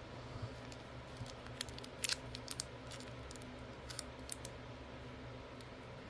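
Small crisp clicks and crinkles of miniature plastic toy food and a cellophane-wrapped toy lollipop handled in the fingers, coming in a cluster about two seconds in and again about four seconds in, over a steady low hum.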